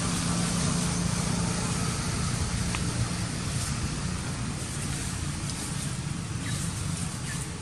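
Steady low rumble with a hiss over it, and a few faint clicks.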